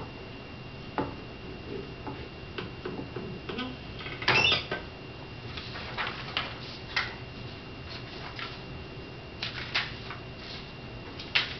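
Paper forms being handled at a lectern: irregular light clicks and rustles of sheets being shuffled and lifted, with one longer, louder rustle a little past four seconds in.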